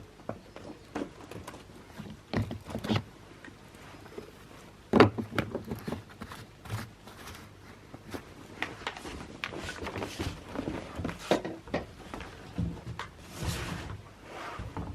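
Irregular clunks, knocks and rattles of gear being handled and loaded at a snowmobile, with the sharpest knock about five seconds in and a short stretch of hiss near the end.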